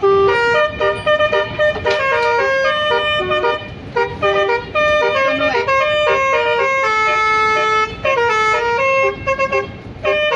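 Bus basuri (telolet) horn playing a rapid multi-note tune: a quick run of short notes at steady pitches, with a few longer held notes around the middle and a brief pause near the end.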